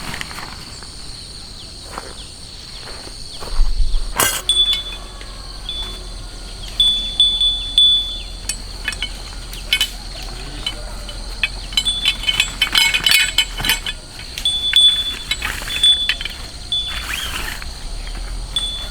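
Steady high insect buzzing, with intermittent short chirps and scattered light metallic clinks and clicks, a cluster of them around the middle.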